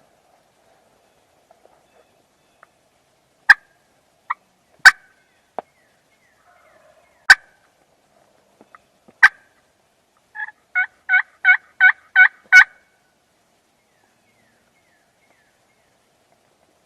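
Turkey clucks and yelps: four loud, sharp single clucks a second or two apart, then a run of seven yelps at about three a second, a little past the middle.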